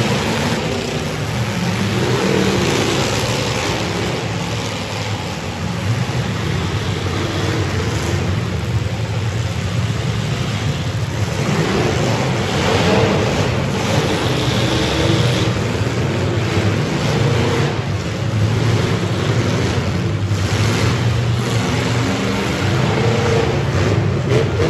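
Many full-size demolition derby cars running and revving hard at once, with occasional crunching collisions between the cars.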